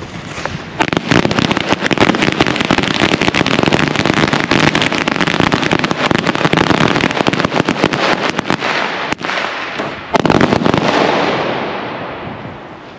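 Firecracker chain going off: a rapid string of sharp cracks lasting about eight seconds, a brief lull, then a final dense burst that fades out. The chain stops there and does not fire any further.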